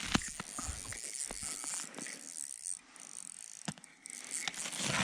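Rustling and a few scattered sharp clicks over a faint steady hiss, from fishing line and gear being handled by hand on snow.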